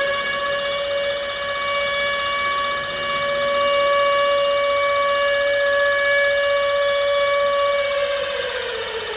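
Civil defence siren sounding one long held tone, then starting to wind down in pitch near the end: an attack-warning wail.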